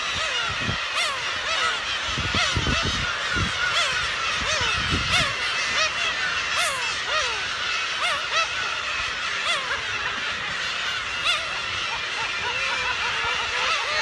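A large breeding colony of gulls calling all at once: a dense chorus of many overlapping cries, each sliding up and down in pitch.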